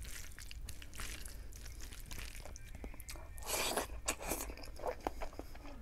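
Bare hand mixing chicken biryani rice with gravy, a run of small wet clicks and squishes. About three and a half seconds in a longer noisy sound comes as a handful of rice goes into the mouth, followed by close chewing.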